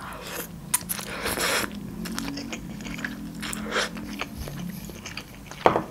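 Close-up eating sounds as a mouthful of instant noodles is taken in: two hissing slurps in the first two seconds, then wet chewing clicks and a low hum through closed lips, with a sharp smack near the end.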